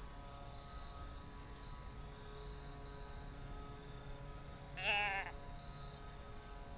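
A deer bleat call sounding once, about five seconds in: a single bleat of about half a second whose pitch rises and bends.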